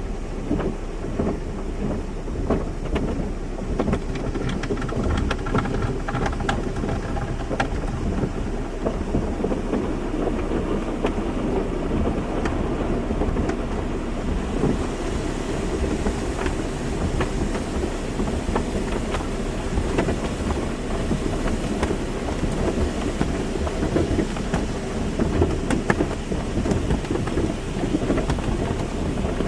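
Automatic car wash running: water spray drumming on a car's body over a steady low rumble of the machinery, with a brighter hiss of spray coming in about halfway through.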